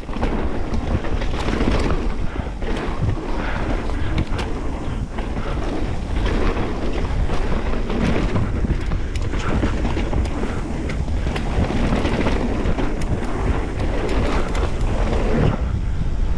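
Mountain bike descending a dirt trail at speed: wind rushing over the action camera's microphone and tyres rolling on packed dirt, with frequent knocks and rattles from the bike over bumps.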